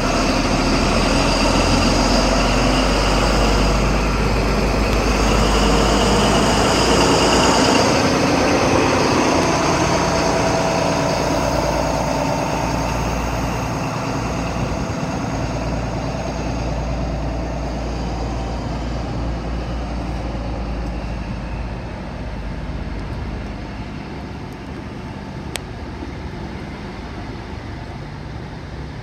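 Diesel passenger train running along the platform, its engine drone loud at first as it passes close, then fading gradually as it moves away.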